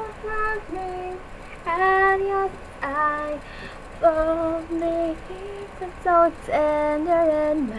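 A young woman singing solo and unaccompanied: a string of held notes with short breaks, some sliding between pitches.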